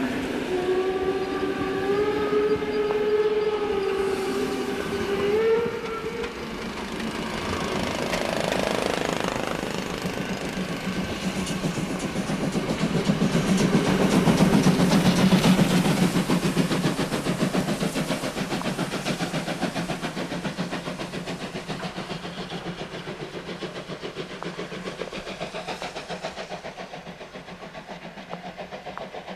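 Steam locomotive whistle sounding for about six seconds, wavering slightly and rising in pitch just before it stops. Then a class 52 steam locomotive passes close with rhythmic exhaust beats and rolling wheels, loudest in the middle, and fades as it pulls away.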